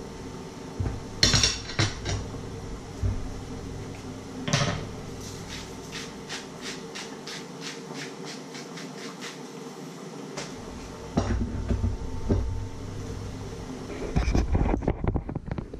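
A metal fork clinking against a china plate a few times, then an even run of light clicks, about three a second, for several seconds. Low rumbling knocks near the end.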